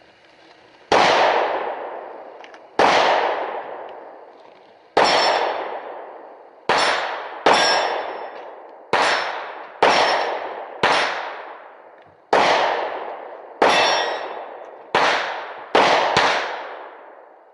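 Thirteen rifle shots fired one at a time at an uneven, unhurried pace. Each sharp crack trails off in a ring lasting about a second.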